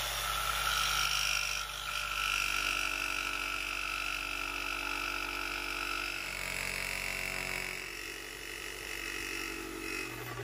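Corded jigsaw with a new, fine 20-teeth-per-inch scrolling blade running steadily while cutting a curve through a thick wooden board. The tone shifts a little about six seconds in, and the saw stops near the end.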